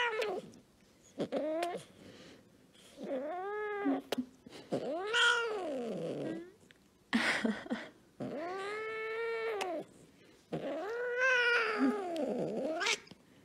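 Scottish Fold cat meowing over and over, about seven drawn-out meows, each rising and then falling in pitch, with short pauses between them.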